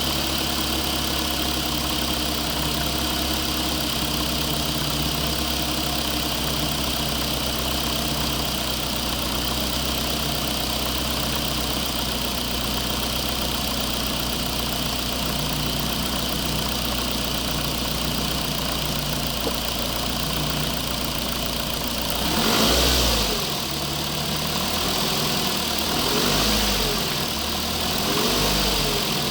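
RC construction machine running with a steady engine-like idle hum. Near the end come three louder swells that rise and fall in pitch.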